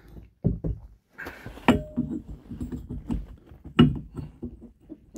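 Irregular knocks and clunks of metal parts being handled, as a 4L60E transmission's tailhousing and its drive flange are offered up to a boat's propeller shaft coupling, with two sharper knocks near two seconds and four seconds in.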